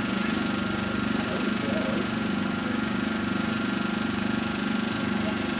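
An engine idling steadily, running evenly with no change in pitch.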